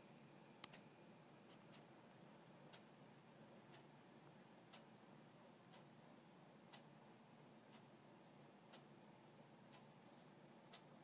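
Faint, sharp ticking about once a second over quiet room hiss.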